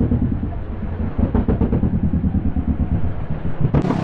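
Kawasaki 650 parallel-twin motorcycle engine running at low speed, its exhaust note pulsing unevenly.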